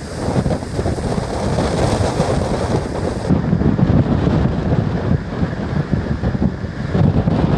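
Strong stormy wind buffeting the microphone in uneven gusts, over the rushing noise of a ferry at sea in rough water.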